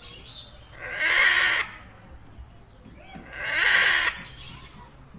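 Macaw squawking: two loud, harsh calls, each just under a second long, about two and a half seconds apart.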